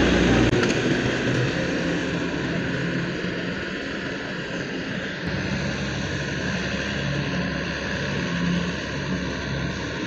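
Combine harvester running as it cuts rice: a steady engine-and-threshing drone that fades over the first few seconds as the machine pulls away, then holds steady.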